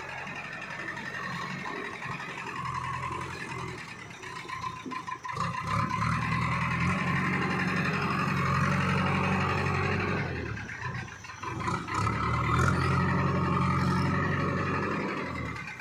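JCB backhoe loader's diesel engine running and revving up under load, its note swelling, easing for a moment, swelling again, then dropping off near the end.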